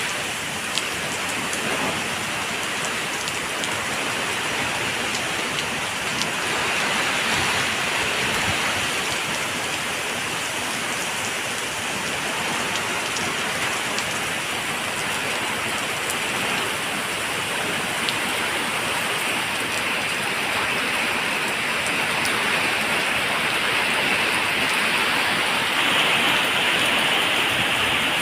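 Waterfall: a steady rush of falling water, even and unbroken, with faint droplet splashes.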